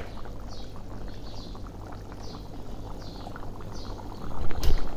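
Chicken and potato curry boiling in an open pan: a steady bubbling with many small pops. A louder bump comes near the end.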